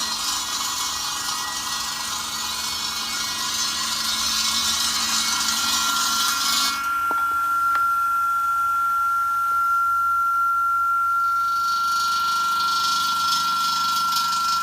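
Bridge saw's diamond blade cutting granite: a broad grinding hiss, with a steady high whine coming in about six seconds in. The hiss drops away about a second later, leaving the whine, then returns near the end.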